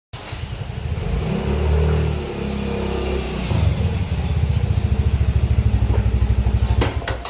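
Motorcycle engine running, its pitch shifting over the first couple of seconds, then a steady fast chugging; a couple of sharp clicks near the end.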